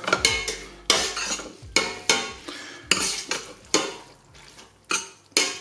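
A spoon scraping and clanking against the inside of a stainless steel pot as pasta is stirred through sauce, in uneven strokes about once a second.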